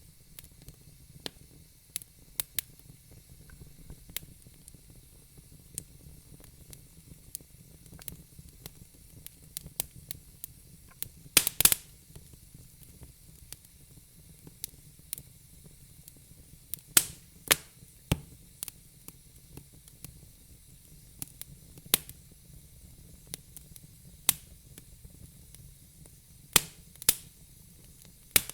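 Fire crackling: scattered sharp pops and snaps at uneven intervals, with a quick cluster of pops about twelve seconds in, over a faint steady hiss.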